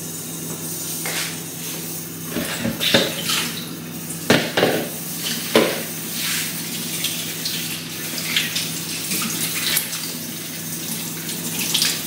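Kitchen tap running into a stainless-steel sink while stalks of sawi (leafy greens) are rinsed and handled under the stream. A few knocks and clatters sound in the first half.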